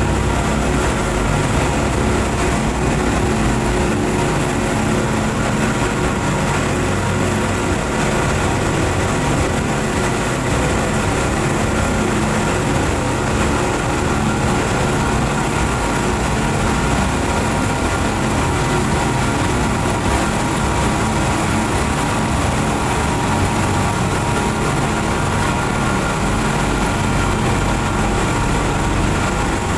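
Four Suzuki 200 hp outboard motors running steadily at speed, pushing a fast passenger boat. It is a loud, unbroken engine drone made of several steady tones, over the rush of the churning wake.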